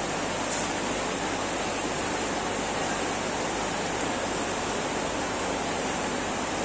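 Steady rushing of running water, an even hiss with no breaks or distinct events.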